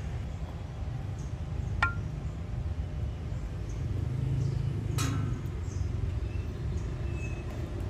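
Two sharp, ringing clinks of glassware about two and five seconds in, over a steady low outdoor rumble.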